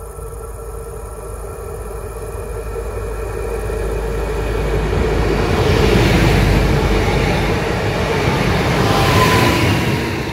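Diesel multiple unit passing close by on the near track. Its engine and wheel noise build to a peak about six seconds in, swell again as the rear of the train goes past, then fade.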